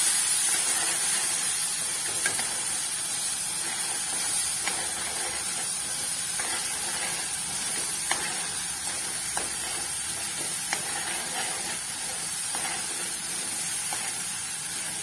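Onion-and-spice masala sizzling in hot oil in a non-stick kadai, a steady frying hiss, with the metal spatula scraping and ticking against the pan now and then as it is stirred. The masala is being fried until the oil separates.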